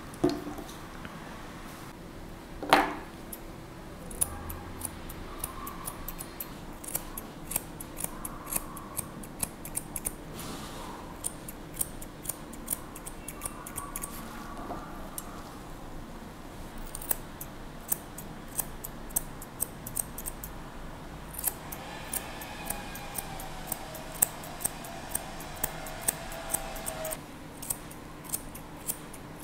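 Grooming scissors snipping through a dog's coat: a long run of crisp snips in uneven bursts with short pauses. Two louder sharp knocks sound near the start.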